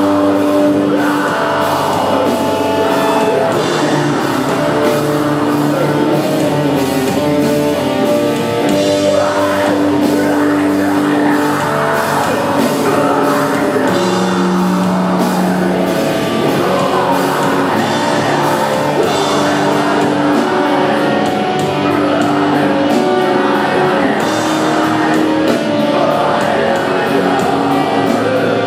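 Metal band playing live: distorted guitars and drums with vocals over them, held notes ringing out.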